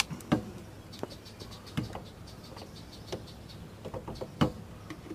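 A handful of sharp knocks and clunks at uneven intervals, the loudest about four and a half seconds in, from hands and tools working on the car's rear strut and jack. Faint insect chirping runs underneath.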